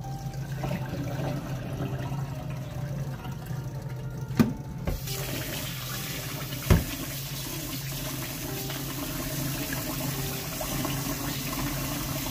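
Kitchen tap running into a rice cooker's inner pot in a stainless steel sink to rinse glutinous rice, starting about five seconds in as a steady hiss, after quieter sloshing as the rinse water is tipped out. Two sharp knocks come between, one just before the tap starts and one just after.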